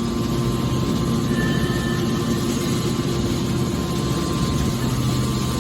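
Hydraulic scrap-metal baler running: a steady machine hum with a few held tones and no sudden knocks.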